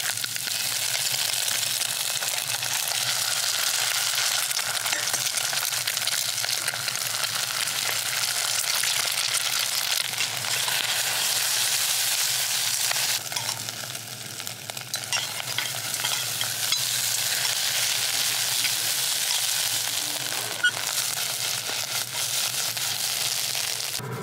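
Eggs frying in a pan, a steady sizzle that eases briefly a little past halfway.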